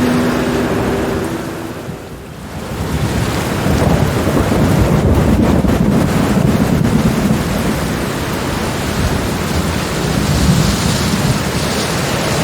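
Rainstorm: steady heavy rain hiss, with thunder rumbling low that swells up a few seconds in and slowly dies back. The rain briefly thins about two seconds in.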